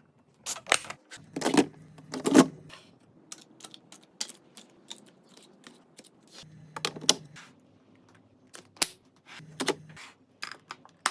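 Refrigerator being restocked: irregular taps, clicks and knocks of containers and packages being handled and set down on the shelves, with a few louder knocks.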